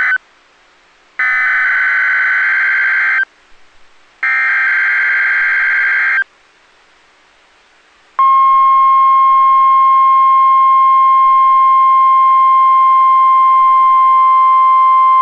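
NOAA Weather Radio alert sequence sounding for a weekly test. Two bursts of warbling digital data tones (the SAME alert header) come about a second apart, after the tail of a first burst. After a two-second pause, the steady 1050 Hz warning alarm tone starts about eight seconds in and holds.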